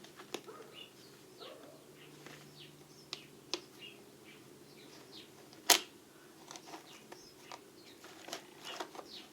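Small metal tools and parts being handled in a toolbox drawer: scattered light clicks and clinks, with one sharper click a little past halfway.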